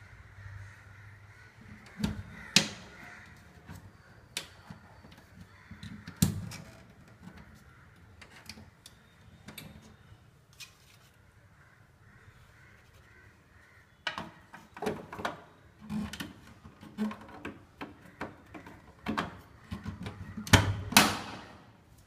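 Plastic clicks and knocks from handling the bottom of a front-loading washing machine: the drain hose being pushed back into its clip beside the filter cap and the lower cover panel being snapped shut. A few scattered knocks come first, then a quick run of clicks near the end.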